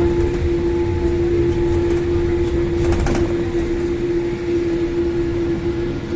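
Cabin noise inside a Boeing 787-8 after landing: a steady hum over a low rumble from the engines and air system. A few faint clicks come about three seconds in.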